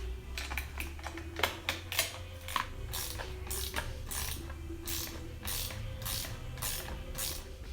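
Hand ratchet clicking in quick strokes, about two a second, as it tightens the bolt and nut that hold an aftermarket mirror to an ATV handguard.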